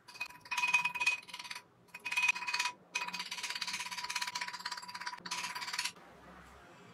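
Nylon-headed hammer tapping rapidly on a twisted brass wire hoop held on a metal ring mandrel, with the mandrel ringing at a steady metallic pitch. Two short runs of taps are followed by a longer fast run that stops about six seconds in.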